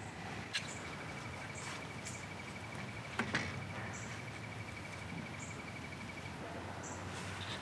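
An insect trilling one steady, high, rapidly pulsing note for about six seconds, with short higher chirps repeating about once a second and two faint clicks.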